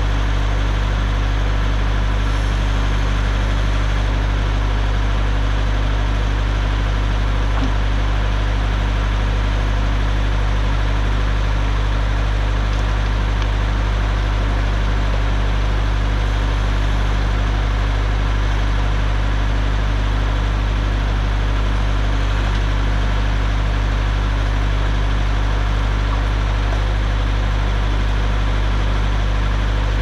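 Compact tractor engine running steadily at a constant speed, driving the PTO-powered hydraulic pump of a backhoe attachment while it digs.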